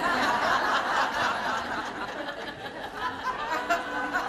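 Studio audience of women laughing together. It starts suddenly, is loudest at first and slowly dies down.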